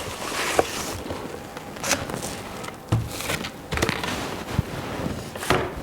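Unboxing handling noise: packaging rustling and parts being handled, with a few sharp knocks as things are set down or picked up.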